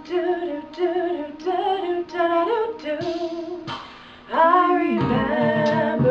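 A woman singing a song with musical backing. About four seconds in, after a short dip, the music comes in louder and fuller, with a low bass part under the voice.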